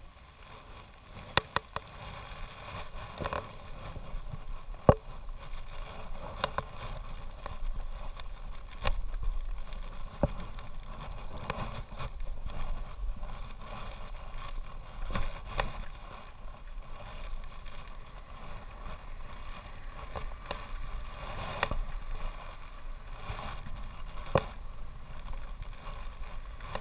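Road bicycle being ridden on tarmac: steady wind and road noise on the handlebar camera's microphone, with scattered sharp clicks and knocks from the bike, the loudest about five seconds in.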